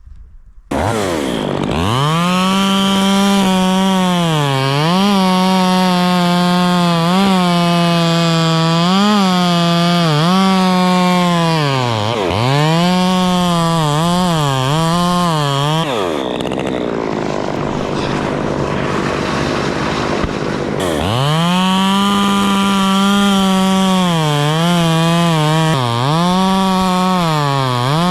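Chainsaw revving hard and cutting fir wood, its pitch dipping again and again as the chain bites and bogs under load. It comes in suddenly. Midway the steady engine note breaks into rougher noise for about four seconds, then the high revving cutting resumes.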